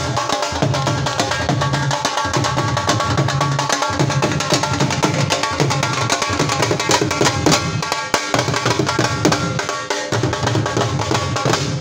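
Two Punjabi dhol drums played together in a fast, driving rhythm: deep booming strokes on the bass heads, coming in phrases with short breaks, under rapid sharp cane-stick clicks on the treble heads.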